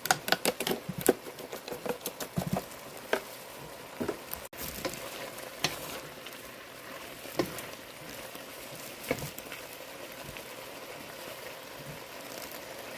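A stir-fry of meatballs and vegetables sizzling steadily in a pan. Sharp clicks and knocks come thick in the first few seconds, then only a few, spaced out.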